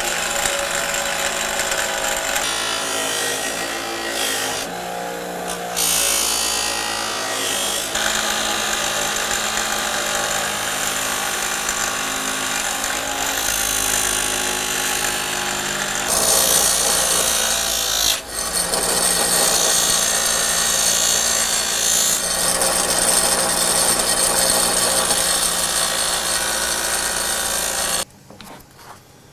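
A power tool running steadily, its motor tone under a dense grinding noise that shifts as work is pressed to it, cutting off suddenly near the end.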